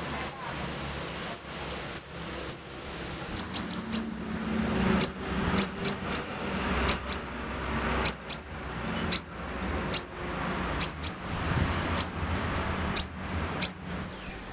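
Sogon, a spiderhunter, calling: sharp, high chirps that each sweep downward, given singly and in quick runs of two to four, about one burst a second.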